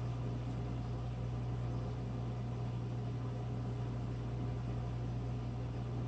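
A steady low hum with a faint even hiss over it, with no distinct events.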